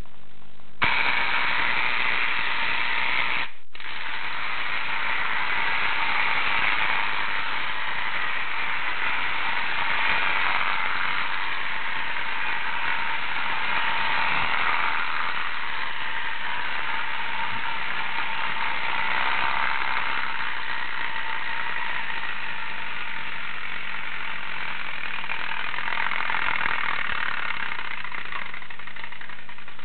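Clockwork spring motor and gears of a KOVAP Bulldog toy tractor running with a steady mechanical whir. It starts about a second in and breaks off for an instant a few seconds later.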